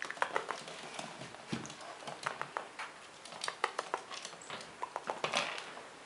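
A baby squirrel's claws scrabbling and tapping on a hard wood-look floor as it plays with a hand: quick irregular clicks and patters, a little louder about five seconds in.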